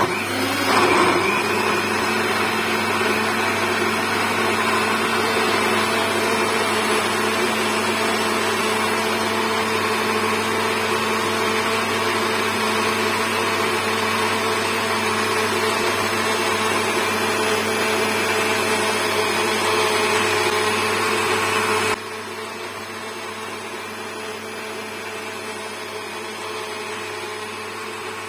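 Electric countertop blender running steadily, blending banana and apple into a shake. About three-quarters of the way through, the sound suddenly drops to a lower level and carries on steadily.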